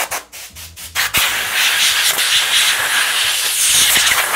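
Hand brushing and rubbing foam dust off an aluminium router jig and the foam blank. A few short scratchy strokes are followed, about a second in, by steady rubbing.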